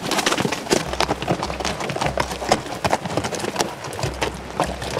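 Horses' hooves clopping and scraping on rocky gravel trail in an uneven string of sharp steps.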